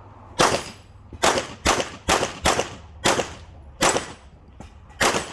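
Eight pistol shots fired at an irregular pace, including two quick pairs: a Tanfoglio handgun being shot through a practical-shooting course of fire.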